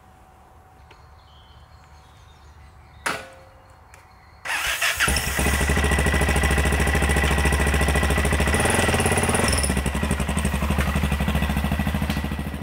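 A single sharp knock, then the Yamaha XT660Z Ténéré's single-cylinder four-stroke engine starts abruptly about four and a half seconds in and runs steadily. The motorcycle then pulls away, its sound fading near the end.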